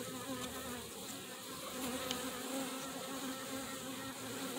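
Honeybees buzzing in an opened nuc hive: a steady colony hum, with a buzzing tone that comes and goes as bees move around.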